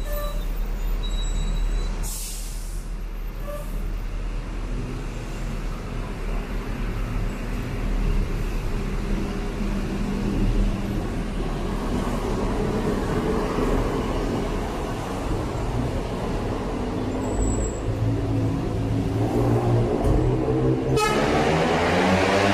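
Steady rumble of city road traffic, with cars, buses and motorbikes passing close by. A high squeal dies away in the first second or two, and music starts to play near the end.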